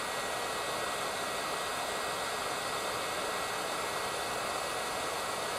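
858D hot air rework station handpiece blowing at its highest airflow setting while it heats toward a 300 °C set point. The air comes out as a steady, even rush.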